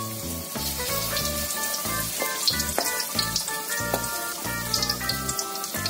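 Corn fritters deep-frying in hot oil in a wok, with a steady sizzle and scattered sharp crackles. Background music with a melody and a pulsing bass line plays over it.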